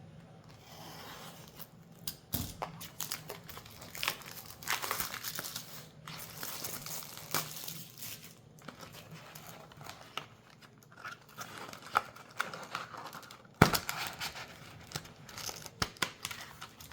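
Plastic shrink wrap crinkling and tearing as it is pulled off a trading-card booster box, in irregular rustles, with one sharp knock about three-quarters of the way through.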